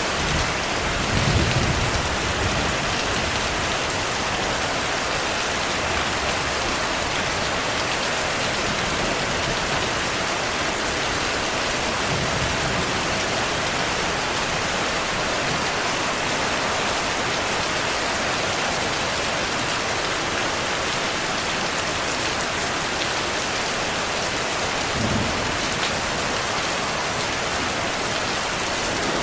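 Steady heavy rain, with low rumbles of distant thunder about a second in, around twelve seconds in, and near the end.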